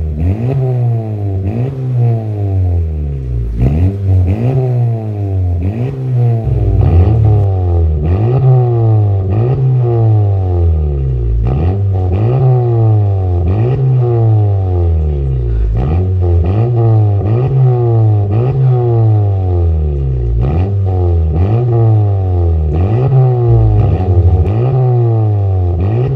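A 2020 Honda Civic RS Turbo's 1.5-litre turbocharged four-cylinder is blipped over and over while the car stands still, heard through an aftermarket catback exhaust with dual exits. The revs come about every second and a half, each one rising quickly in pitch and falling back.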